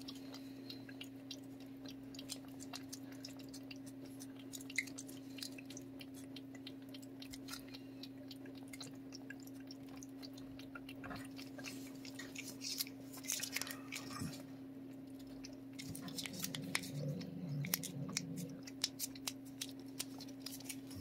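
A cat licking and chewing a paste treat squeezed from a tube: a run of small wet smacking clicks, busier in the second half, over a steady low hum.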